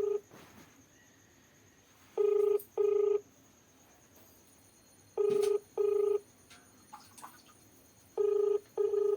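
Telephone ringback tone heard through the phone: paired steady beeps repeating about every three seconds, the Indian-style double ring, meaning the called phone is ringing and has not yet been answered.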